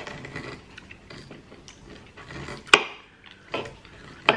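Eating sounds from a lamb chop meal: chewing and handling with a few sharp clicks, the loudest a little under three seconds in.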